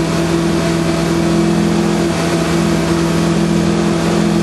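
Lada 2101's four-cylinder engine pulling hard at steady revs, heard from inside the car's cabin.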